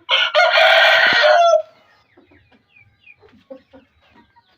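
A rooster crowing once, loud and rasping, lasting about a second and a half. Faint short bird calls follow.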